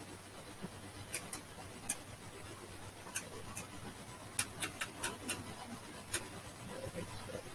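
About a dozen sharp, irregular clicks from an oscilloscope's front-panel rotary knobs being turned, bunched most closely around four to five seconds in.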